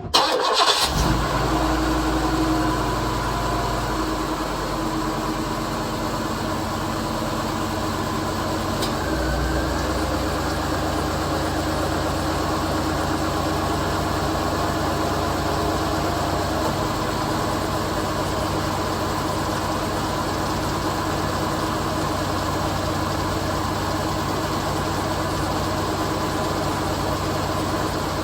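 1993 Cadillac DeVille's V8 engine starting at the very beginning, then settling into a steady idle. Its low note shifts about nine seconds in.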